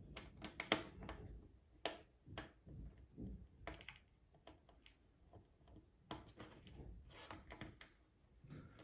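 Irregular light clicks and taps from hands working on a laptop's plastic casing and screen assembly during reassembly, in small clusters.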